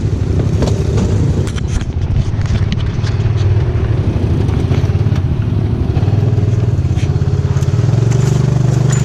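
ATV engine running steadily while riding an off-road trail, with scattered clicks and scrapes in the first few seconds. The engine note rises a little near the end.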